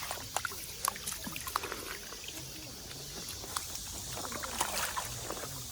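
Mountain stream water running, with scattered small splashes and clicks, most of them in the first second and a half and again about four and a half seconds in.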